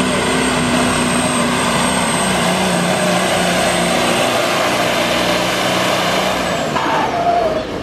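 Peterbilt hot rod semi's diesel engine running flat out under load as it pulls the sled, with a steady high turbo whine over the engine note. Near the end the engine note and the whine fall in pitch as the truck comes off the throttle.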